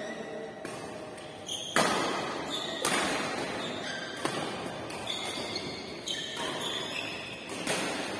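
A series of about six sharp hits, roughly one a second, several of them followed by a short high ring.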